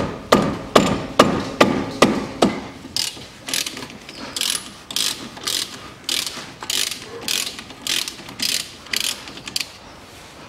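Ratchet wrench with a 14 mm socket undoing a brake caliper bolt: the pawl clicks in a steady rhythm of about two strokes a second. The clicks turn sharper and higher from about three seconds in and stop shortly before the end.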